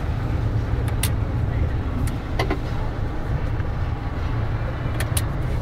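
Steady low rumble of a Mercedes-Benz Actros truck's diesel engine and tyre noise heard inside the cab, with a few short sharp clicks or rattles.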